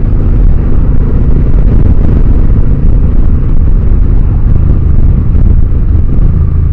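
Motorcycle engine running, largely buried under a loud, steady wind rumble on the microphone.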